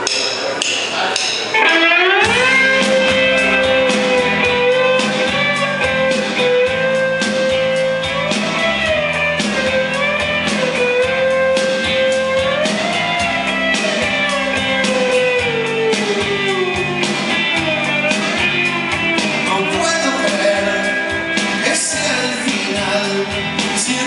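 Live rock band with electric guitars, bass and drums playing an instrumental passage: a few sharp taps, then the full band comes in about two seconds in, with a sustained lead melody that slides between notes over a steady beat.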